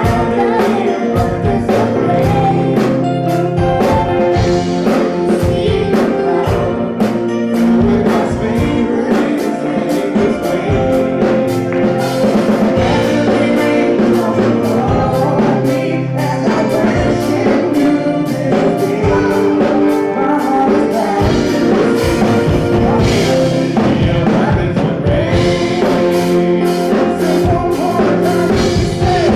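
Church worship song: a choir singing over a band, with drums keeping the beat.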